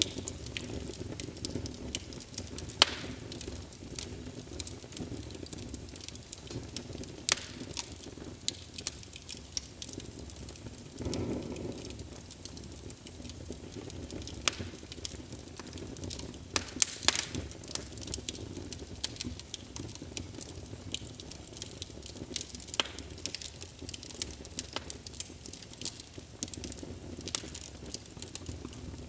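Wood fire in a fireplace crackling, with frequent irregular sharp pops over a low, steady rumble of burning flames. The rumble swells briefly about eleven seconds in.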